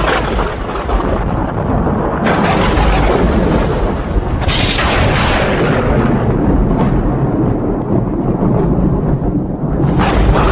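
Thunder: a continuous deep rolling rumble, broken by sharp new claps about two seconds in and about four and a half seconds in, each fading slowly, and another clap near the end.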